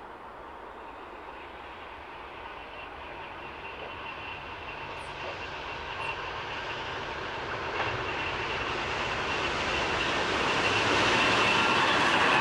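Freight train led by two Pacific National NR-class diesel-electric locomotives approaching and passing close by, its engine and wheel noise growing steadily louder until the locomotives draw level near the end. A thin, steady high whine runs under it as it nears.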